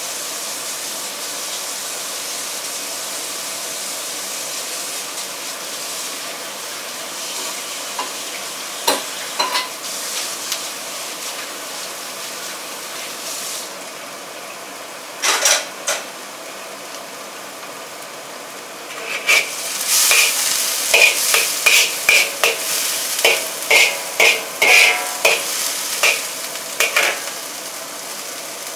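Rice frying in a hot pan with a steady sizzle, easing off about halfway through. Later a spatula scrapes and knocks against the pan in a quick run of strokes as the rice is stirred and tossed.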